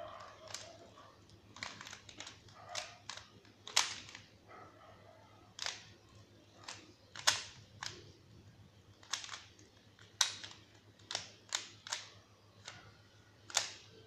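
Plastic 3x3 Rubik's cube being turned by hand: sharp clicks and clacks as its layers snap round, coming unevenly, one to a few a second.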